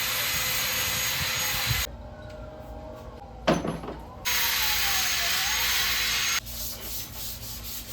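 A power tool runs in two bursts, each switching on and off abruptly with an even, hissing noise. There is a sharp clatter between the bursts, and the tool's pitch dips briefly and recovers during the second one.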